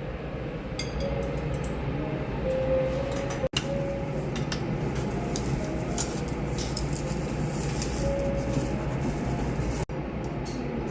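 Steady low rumble and hiss with faint scattered clicks, cut off briefly twice.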